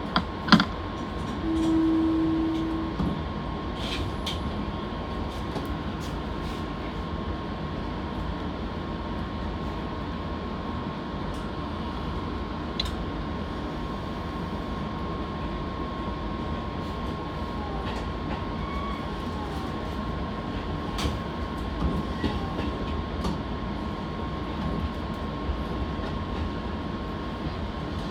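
Fujikyu Railway electric train moving off after a stop and running, heard from inside the train, with a sharp click about half a second in and a short, loud, steady tone lasting about a second and a half, about two seconds in.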